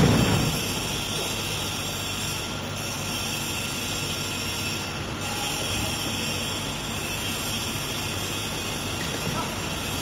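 Compressed wood pallet production line machinery running with a steady, even noise and faint high steady tones; a single low thump comes right at the start.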